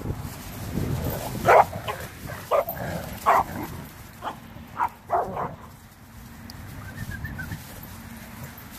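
Dogs barking during rough play, a run of about seven short barks over the first five seconds or so, then quieter. The barking is play, not a real fight.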